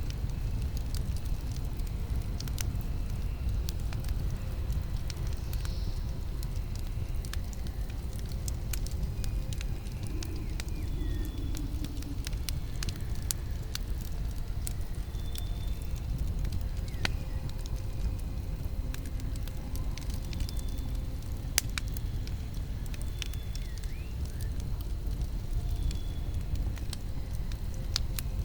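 Wood campfire burning: irregular crackling and sharp pops over a steady low rumble, with one louder pop about three-quarters of the way through.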